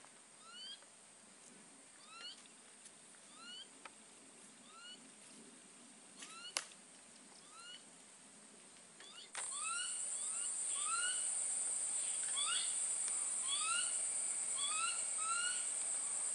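Short rising chirping calls from an animal, repeated about once a second and more often in the second half. From about nine seconds in, a steady high-pitched buzz of cicadas or crickets runs under them, and there is one sharp click about six and a half seconds in.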